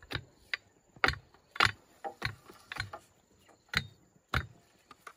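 A series of sharp knocks at an uneven pace, about ten in all, the loudest a little over a second in.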